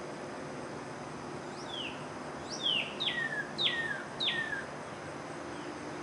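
Northern cardinal singing one phrase of about five clear down-slurred whistles, starting about a second and a half in: two shorter slurs, then three notes that drop sharply before trailing off lower. A steady background hiss runs underneath.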